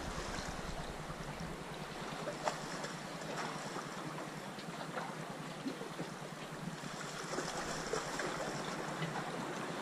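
Steady wash of the sea against breakwater rocks, with a few faint clicks as fishing tackle is handled.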